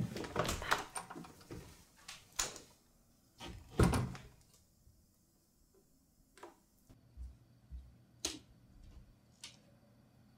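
Rustling and knocks, then a door shutting with a heavy thud about four seconds in, followed by a few faint clicks in a quiet room.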